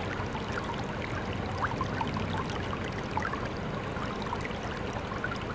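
Floodwater flowing and trickling steadily, with many small gurgles and drips.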